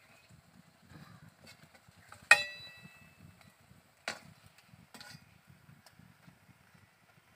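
A single sharp metallic clink with a brief ring about two seconds in, like a steel or aluminium utensil being knocked, followed by two softer knocks, over a low rustle of handling.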